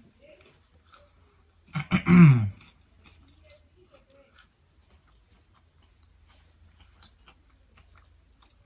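A person chewing food quietly, with soft wet mouth clicks. About two seconds in comes one short, loud voiced sound from the eater that falls in pitch.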